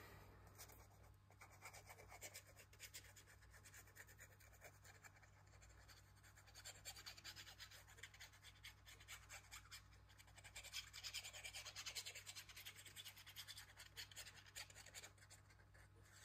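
Faint scratching and rubbing of a glue bottle's nozzle tip drawn along a strip of white paper as glue is laid on, with light paper handling. It gets busier and a little louder about ten to thirteen seconds in.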